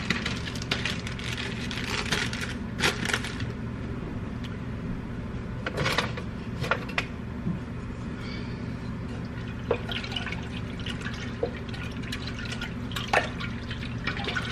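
Diced vegetables splashing into a pot of chicken stock, with scattered wet plops and a few clinks over a steady low hum.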